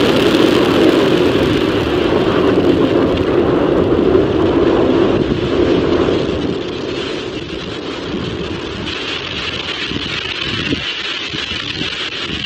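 Falcon 9 first stage's nine Merlin engines under full thrust during liftoff and ascent, a steady, dense rocket roar. It drops in level and thins out about six seconds in.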